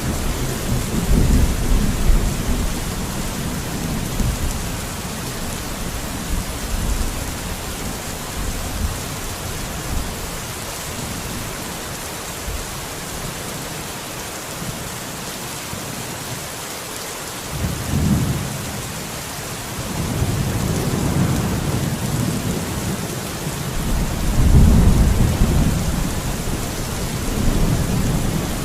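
Steady rain falling, an even hiss, with a deep low rumble that swells and fades several times: strongest near the start, about two-thirds of the way in and near the end, and dropping away for a few seconds in the middle.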